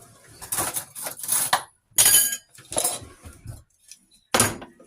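Clinking and clatter of kitchenware being handled, in about five short bouts with brief pauses between.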